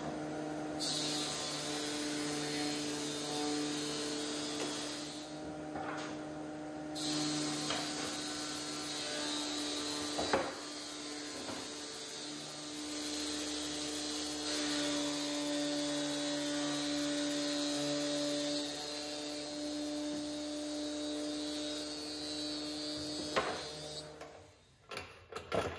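Felder AD 931 planer-thicknesser running with a steady hum while tulip wood boards are fed through and planed. A high cutting hiss comes and goes as boards pass through, broken by a single knock. The machine's sound cuts off near the end.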